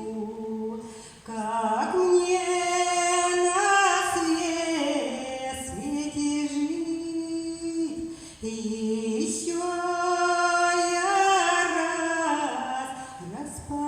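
Female singing of a slow Russian song, in two long phrases of held notes with a short break about eight seconds in.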